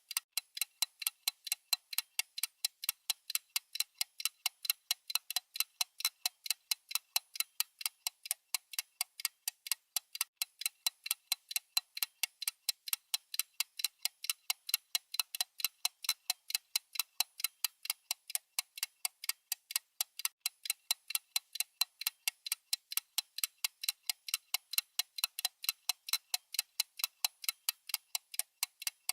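Mechanical watch movement ticking: rapid, even beats, several a second, steady throughout.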